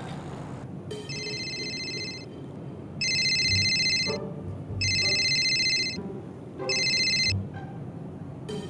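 A mobile phone's electronic ringtone rings four times, about a second each, with short gaps. The fourth ring is cut short as the phone is answered.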